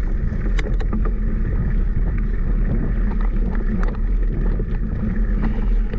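Steady loud rumble of wind and motion noise on a moving action-camera microphone, with scattered sharp clicks and rattles.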